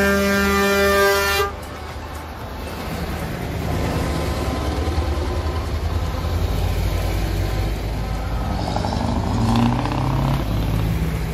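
Truck air horn blaring in a steady chord, cutting off suddenly about a second and a half in. Then the diesel engines and tyres of lorries driving past close by, getting louder as they pass.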